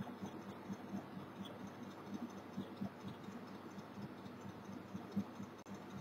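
Faint room noise with small irregular ticks and rustles.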